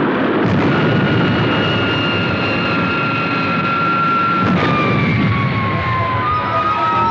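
Sound effect of Supercar's retro rockets firing: a loud, steady rushing roar with a high whine over it. About halfway in, the whine starts to fall slowly in pitch as the rockets slow the car and the runaway train.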